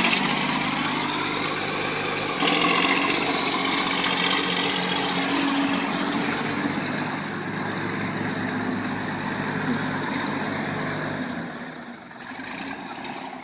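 Vintage Oliver Cletrac DDH crawler bulldozer running as it works, getting louder a couple of seconds in, then dying down near the end as the machine comes to a stop.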